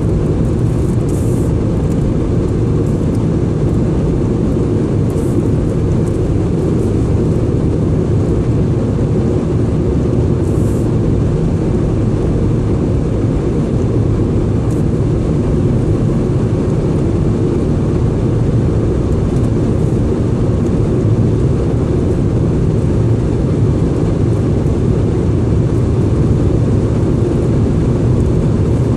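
Steady low road and engine noise of a moving car, heard from inside the cabin, an even rumble with no change in level.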